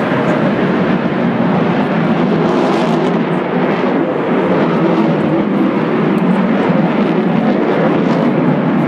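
Sukhoi Su-35 fighter jet flying high overhead: a steady, loud rushing jet noise from its twin AL-41F1S afterburning turbofans.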